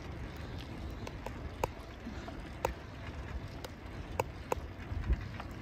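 Riding noise picked up by a jostled cellphone microphone on a moving bicycle: a low rumble of wind and tyres on pavement, with sharp clicks and knocks every half second to a second as the phone bounces.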